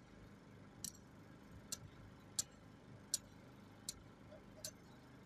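Six sharp, high clicks, evenly spaced about three-quarters of a second apart.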